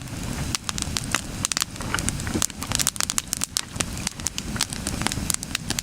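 Wood campfire burning, with frequent sharp crackles and pops from the burning logs over a low rumble of flame.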